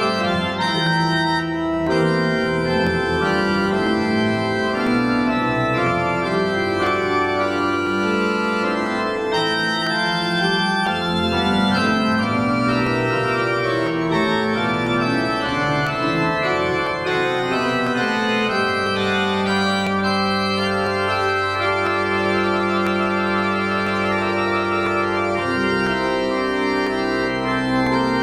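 Organ music: an organ playing a closing voluntary of sustained chords and moving lines at a steady level, settling into long held chords in the last third.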